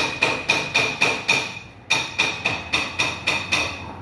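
Metal being struck repeatedly, hammer-style, about four blows a second, each blow ringing with a high metallic tone; the blows break off briefly about halfway through, then resume at the same pace.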